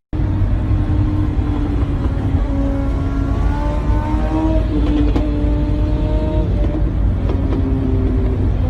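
A motorcycle engine running steadily under a heavy low rumble, its pitch shifting slightly, with a sharp click about five seconds in.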